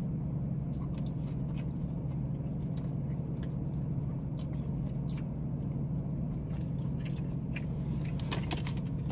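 Close-up mouth sounds of a man biting and chewing fried chicken: scattered small crunches and smacks over a steady low hum in the car's cabin.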